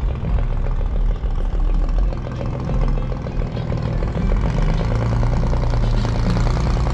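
Car engine idling with a steady low note and a fast even pulse from its firing.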